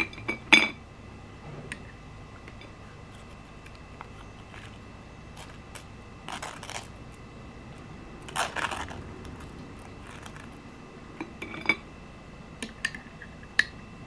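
A metal spoon clinking against a glass jam jar: a few sharp clinks near the start and a quick cluster near the end. In between come two short scratchy scrapes as the spoon spreads jam across a slice of crisp dry toast.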